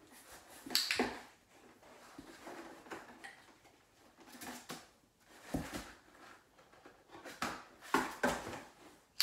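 A puppy shifting about in a cardboard box: a handful of scattered knocks and rustles of paws and body against the cardboard, loudest about a second in and near the end.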